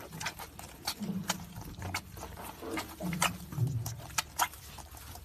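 An animal sneezing and snorting: many short sharp snorts, with two low grunts, about a second in and about three seconds in.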